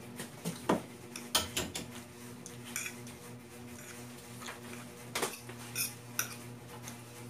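Metal fork clinking and scraping against a plate in irregular short knocks while twirling palabok noodles, over a steady low hum.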